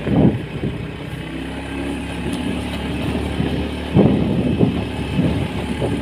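Motorcycle engine running steadily while riding over a rough dirt track, with short louder jolts near the start and about four seconds in.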